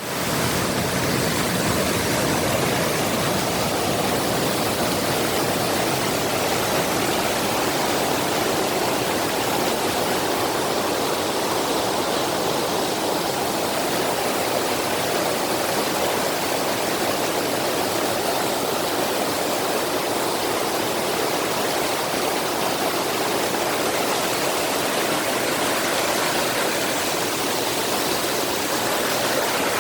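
Mountain stream rushing over rocks in a valley: a steady, loud rush of flowing water.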